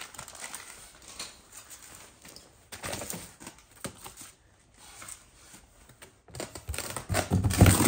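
Small metal exhaust-mounting parts, a clamp and bolts, being handled with their packaging: scattered light clicks and rustling, then louder clattering near the end.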